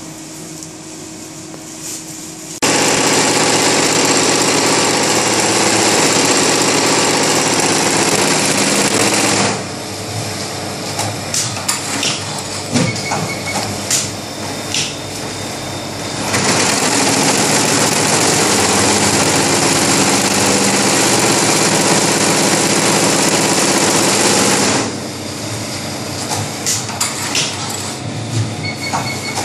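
Tajima multi-head embroidery machine running. Loud, dense stretches of steady stitching noise alternate abruptly with quieter stretches of separate clicks and knocks, switching four times.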